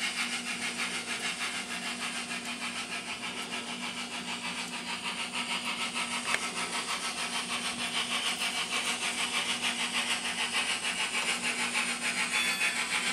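Sound decoder in an N scale 4-6-2 Pacific model steam locomotive playing steam exhaust chuffs through the model's small speaker. The chuffs come in an even rhythm of about four a second over a steady hum, growing gradually louder.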